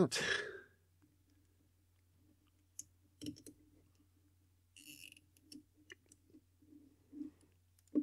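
Nylon cable tie being threaded and pulled tight around a small plastic connector hood: scattered faint plastic clicks and fiddling, with a short rasp about five seconds in and a sharper click near the end.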